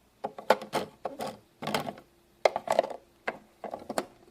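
Plastic toy kitchen pieces being handled and set down: an irregular string of light clacks and knocks.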